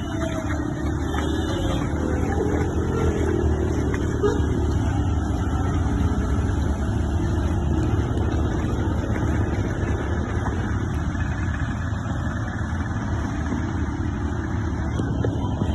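Steady street traffic noise, vehicle engines and tyres rumbling on a city road, with the falling tail of a siren fading out in the first couple of seconds.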